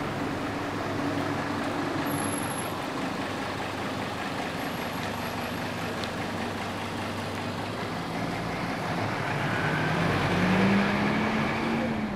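A mid-size bus's diesel engine running as it turns and pulls away, the engine note rising and growing louder as it accelerates near the end.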